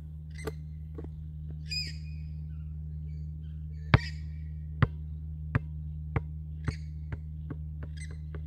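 A basketball is dropped onto a concrete path and bounces freely to rest. The first impact, about four seconds in, is the loudest; the bounces that follow come quicker and quieter. A bird squawks a couple of times, once around two seconds in and again near the end.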